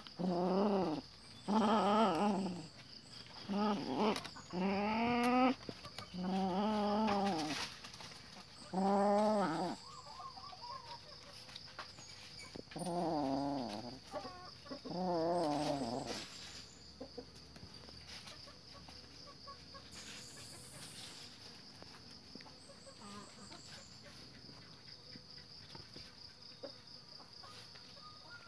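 Kitten growling in about eight long calls of wavering pitch over the first sixteen seconds as it clutches a cloth in play.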